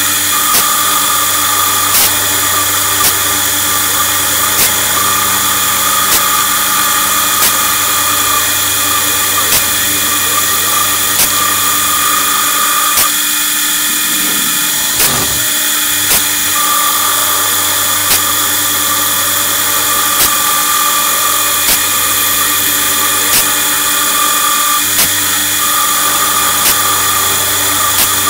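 CNC milling machine's end mill cutting a circular pocket in an anticorodal aluminium-alloy plate: a steady, loud machining noise with a high whine that comes and goes. Sharp ticks sound every second or two, and the low drone briefly dips about halfway through.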